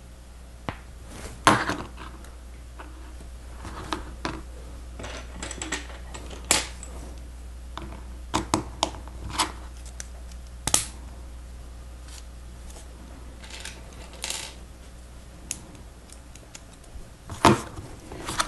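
Plastic Lego Technic pieces being handled and pressed together: irregular sharp clicks and rattles, about a dozen over several seconds, with a few louder snaps near the start and near the end.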